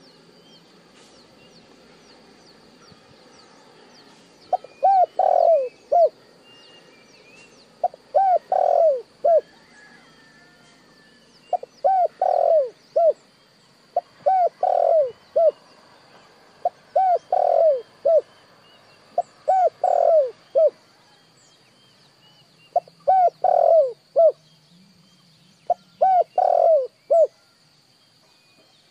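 Spotted dove cooing: eight phrases of three or four short coos each, one every three seconds or so, starting about four seconds in. Faint small-bird chirps sound behind it.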